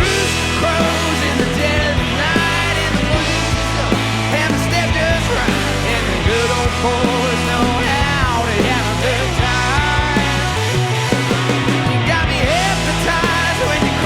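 Blues-rock band playing live: electric guitar with bending notes over bass guitar and drums.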